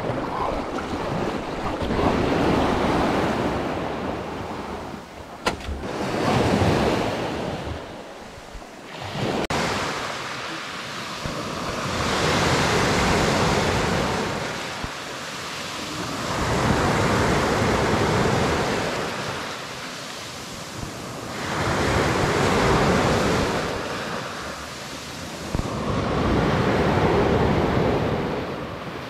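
Small waves breaking and washing up a fine white shingle beach, the surf swelling and falling back in slow surges about every four to five seconds.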